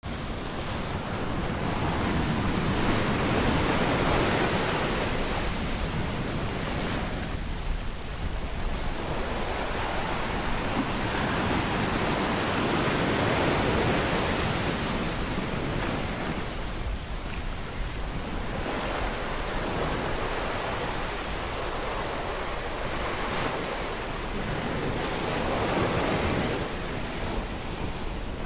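Ocean surf washing up a sandy beach among rocks, a steady rush of water that swells and eases as waves come in and draw back, with brief lulls twice.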